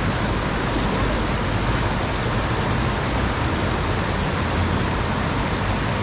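Flowing river water rushing steadily, a constant loud noise with a low rumble.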